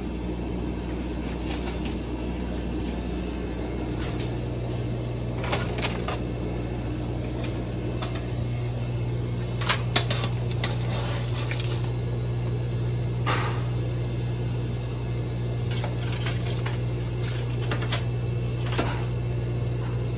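A steady low machine hum, like an appliance motor or fan, that grows louder about four seconds in, with a few scattered clinks and knocks of dishes or utensils.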